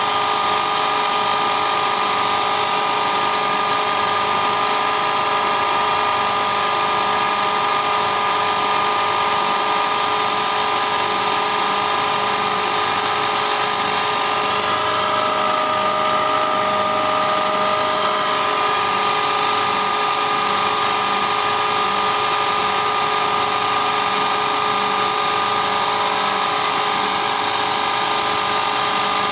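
Milling machine running, a small end mill cutting a lengthwise groove into a metal shaft: a steady, unbroken whine of the spindle and cut, with an extra tone joining briefly about halfway through.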